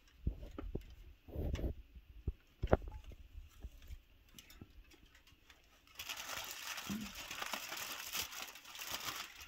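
Aluminum foil being handled: a few low bumps and clicks in the first three seconds, then about three and a half seconds of continuous crinkling from about six seconds in.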